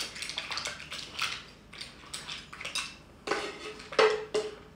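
Metal spoon scraping and knocking against a frying pan while mussels in their shells are spooned out into a ceramic serving dish: a string of short scrapes and clatters. The two loudest knocks, about three and four seconds in, leave a brief ring.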